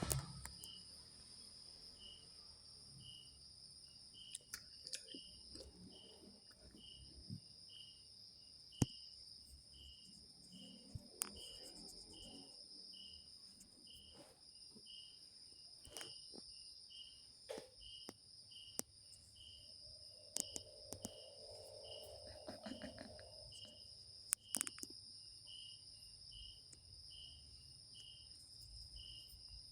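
Insects, likely crickets, chirping: a steady high-pitched drone with a regular chirp repeating about once a second, broken by scattered faint clicks and soft knocks.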